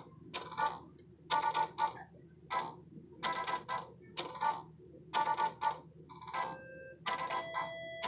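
Bulbasaur (Fushigidane) tap-dancing toy tapping out a rhythm: sharp, slightly ringing clicks in small groups about once a second. About six seconds in, a beeping electronic tune begins alongside the taps.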